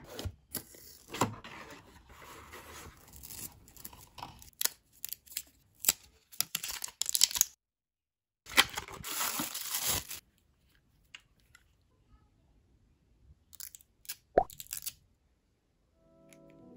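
Rustling, tearing and crinkling of cardboard and plastic packaging as a box of wireless earbuds is unboxed, with scattered clicks and taps from handling the box and the earbud case. The handling noise is dense at first, breaks off briefly, then thins to a few isolated clicks.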